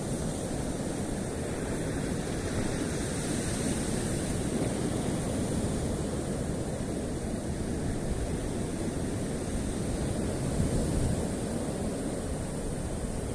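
Sea surf with wind on the microphone: a steady rushing noise without distinct breaks.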